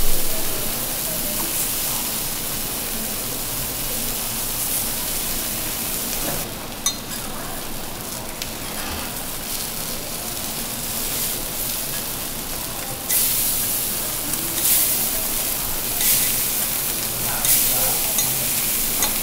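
Whole fish frying in oil on a flat-top teppanyaki griddle: a steady sizzle that drops back for a few seconds near the middle and comes back louder, with surges, in the second half. One sharp click about seven seconds in.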